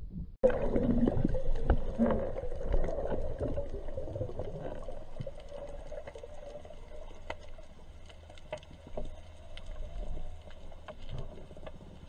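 Underwater sound through a diving camera's housing: a steady rush of water with many scattered sharp clicks and crackles. It starts abruptly about half a second in and is loudest in the first few seconds, then fades.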